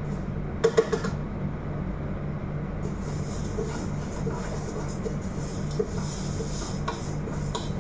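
Steady low hum in a kitchen at a lit gas stove, with two sharp metal clinks against a stainless steel pot about a second in. A faint sizzle of food browning in the pot comes in about three seconds in.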